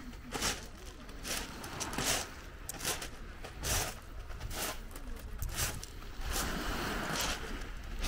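Footsteps crunching on beach pebbles at walking pace, with a small wave hissing up over the pebbles near the end.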